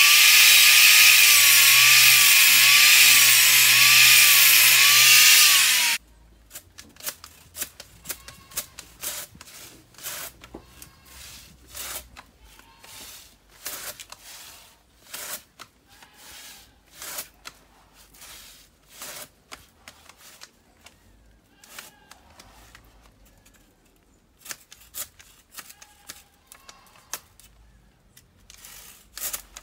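Angle grinder running steadily against a crosscut saw's steel blade, its pitch wavering as the load changes, cutting off abruptly about six seconds in. Then a hand crosscut saw cutting into a palm trunk: quieter, irregular rasping strokes about one or two a second.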